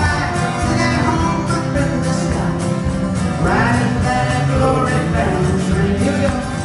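A man singing a country-gospel song live, with a strummed acoustic guitar.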